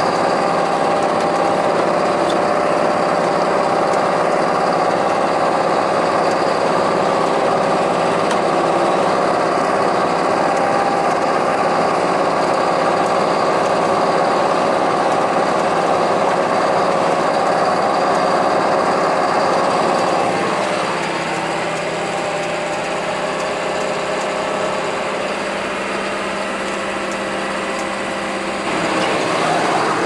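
John Deere 6430 tractor running under load while driving a Shelbourne Reynolds PowerSpread side-discharge muck spreader, whose rotor throws muck out the side: a steady mix of engine and machinery noise. It gets a little quieter about two-thirds of the way through and rises again near the end.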